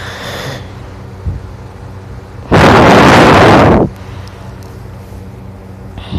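A person snoring very loudly: one long, harsh snore about two and a half seconds in, lasting over a second, and the next one starting right at the end.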